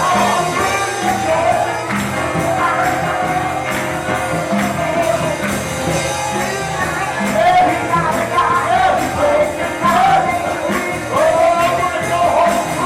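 Upbeat church worship music: a band with a steady bass beat and tambourine, with voices singing.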